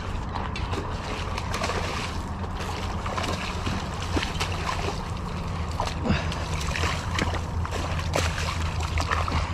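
Hooked bass splashing and thrashing at the surface of a weedy pond close to the bank as it is fought in: repeated short splashes over a steady low rumble.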